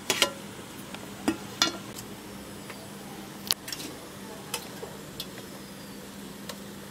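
Steel cookware being handled: a handful of scattered light clinks and taps as steamed momos are lifted from a steel steamer pot onto a steel tray, over a steady hiss and a low hum.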